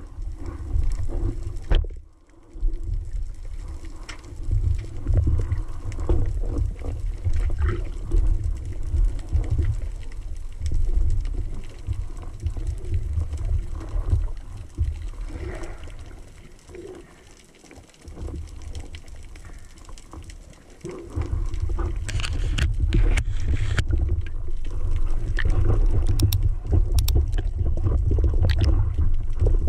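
Underwater sound heard through a camera's waterproof housing: a muffled low rumble of moving water with scattered clicks and knocks. It drops quieter a little past halfway, then grows louder and busier with clicks from about two-thirds through.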